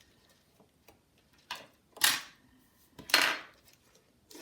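A spudger prying and scraping at a small iPod Nano's metal body and parts: a few short, sharp scrapes and clicks, the loudest about two and three seconds in.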